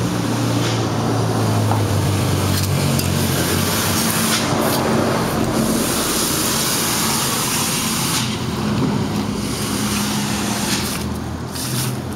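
Street traffic: a motor vehicle's engine hum with a constant hiss over it, cutting off abruptly at the end.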